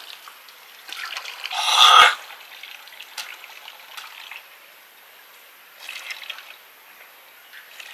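Water trickling and splashing in short, irregular spells, loudest about two seconds in, where it ends with a dull thump.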